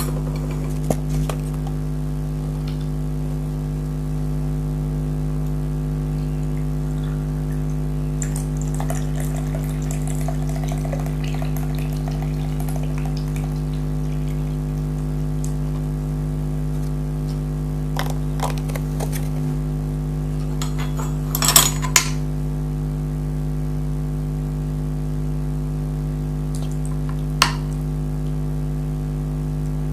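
A steady electrical hum, with a few sharp clinks of dishes and cutlery against glass, the loudest about two-thirds of the way in, and a stretch of soft handling noise as the food and drink are set out.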